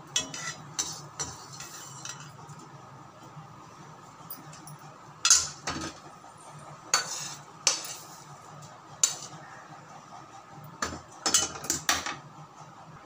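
A slotted metal spatula knocking and scraping against a metal kadai as roasted garlic is scooped out. The clinks come singly a second or two apart, with quick clusters near the start and near the end.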